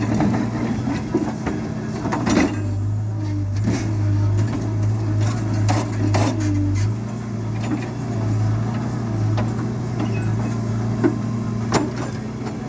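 A motor running steadily on a construction site, with scattered sharp clinks and knocks of tools and materials over it.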